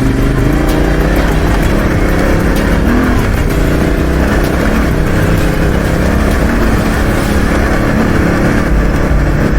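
Motorcycle engine running steadily while riding, with heavy wind rumble on the microphone.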